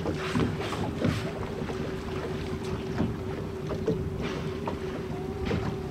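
A boat's motor running with a steady hum, under wind buffeting the microphone and short bursts of splashing water.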